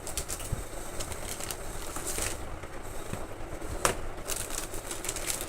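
Hands handling computer parts and packaging: scattered light clicks and crinkling, with one sharper click a little under four seconds in.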